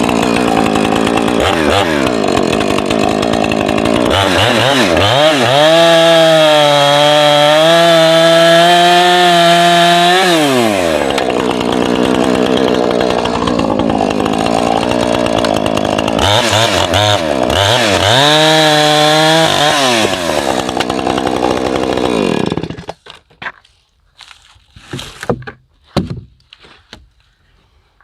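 Gas chainsaw running while cutting timber: it revs up and holds high under load twice, drops back in between, and shuts off near the end. A few light knocks and rustles follow.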